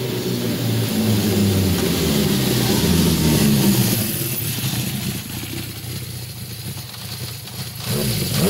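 Motorcycle engine revving at speed, its pitch climbing over the first few seconds, then dying down and quieter for a few seconds before a fresh rising engine note starts near the end.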